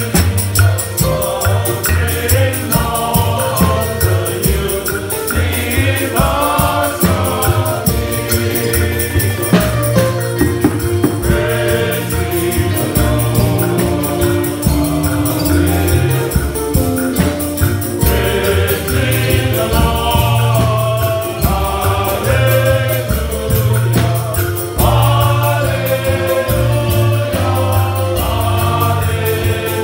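Men's choir singing a hymn, with hand drums and a shaker keeping a steady beat.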